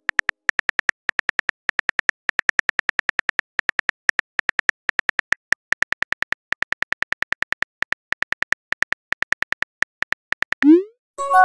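Texting-story app keyboard clicks: a rapid run of short, even ticks, several a second, as a message is typed out letter by letter. Near the end a quick rising swoosh is followed by the start of a chime as the message is sent.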